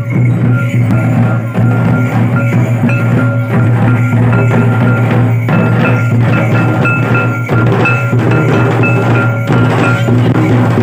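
Santhali folk drumming on two-headed barrel drums in a steady, dense rhythm, with a short high metallic ring repeating on the beat.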